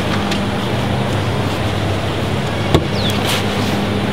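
Steady low mechanical drone with a hum, of the kind made by traffic or air-conditioning plant, with one sharp click about two-thirds of the way through.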